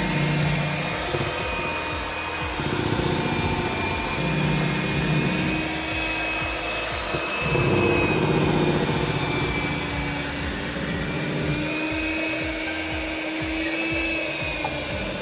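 Electric cake mixer running steadily while beating cake batter, its motor whine wavering slightly as the load on the beaters changes.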